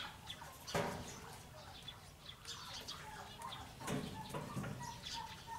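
Quiet outdoor ambience: faint bird calls, mostly near the end, with scattered soft rustles and small clicks.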